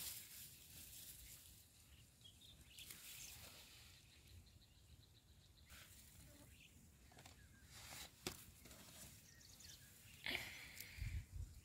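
Near silence with faint scattered rustling and a few soft clicks, the loudest about eight and ten seconds in.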